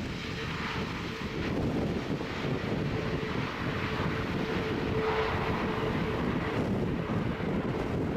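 Airbus A330neo's Rolls-Royce Trent 7000 jet engines running, a steady rumble with a held tone, getting louder about a second and a half in. Gusty wind buffets the microphone.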